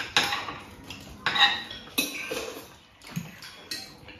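Forks and knives clinking and scraping on ceramic dinner plates as people eat, in several separate clinks.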